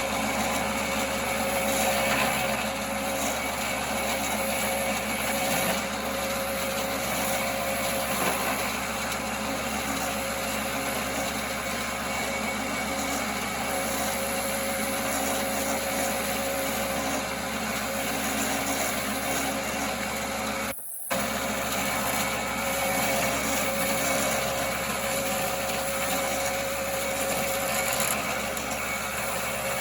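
1939 Pow-R-Kraft wood lathe running steadily while turning wood, a constant mechanical hum with a steady whine. The sound cuts out for a moment about two-thirds of the way through.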